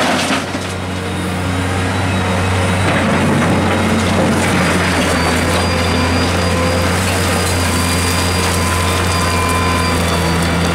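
Liebherr R944 crawler excavator's diesel engine and hydraulics running steadily under load as the arm swings and the bucket digs into river gravel, with stones scraping and crunching.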